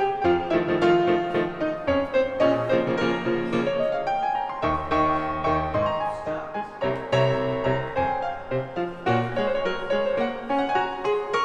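Background music played on piano, many notes moving quickly in a classical style.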